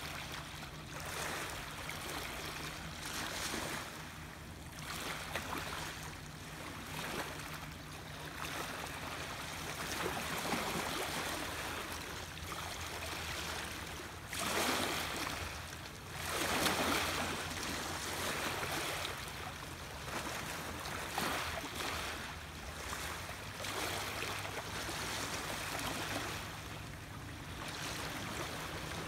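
Small waves lapping and washing at the water's edge, swelling in uneven surges, the biggest about halfway through, over a steady low hum.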